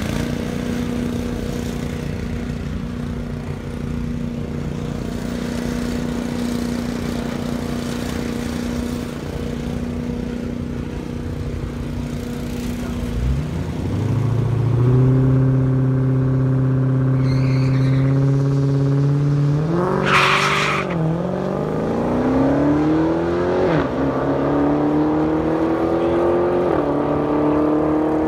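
Dodge Challenger SRT Hellcat's supercharged 6.2-litre Hemi V8 idling steadily at the starting line. About halfway through it is brought up to a higher held rev. It then launches with a short burst of tyre hiss and accelerates hard, its pitch climbing and dropping sharply at each upshift, three times.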